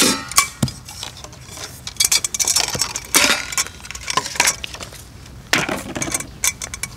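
Stainless steel pans and plates of a Stanley Camp Pro cook set clinking and rattling against each other as the nested pieces are lifted out of the pot, in several irregular bursts.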